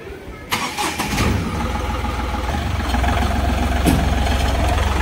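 Ashok Leyland pickup truck's engine starting about half a second in, then idling steadily, with a single click near the end.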